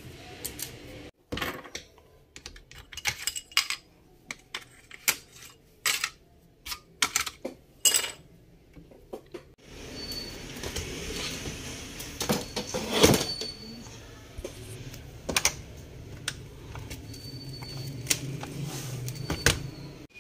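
Scattered sharp clicks and taps of small plastic and metal parts being handled as a laptop is taken apart, with a louder knock a little past halfway.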